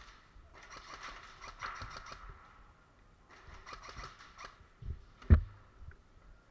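Airsoft gun fired in two bursts of rapid ticking clicks, each lasting one to two seconds, followed by a single sharp thump.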